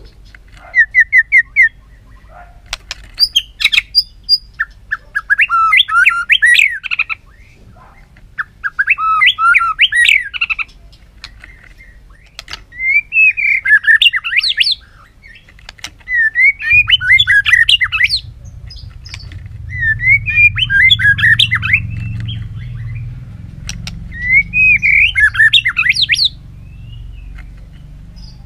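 White-rumped shama singing at full intensity: a loud song of varied, rapidly sliding whistled phrases, one every two or three seconds, with short sharp clicks in the gaps between them.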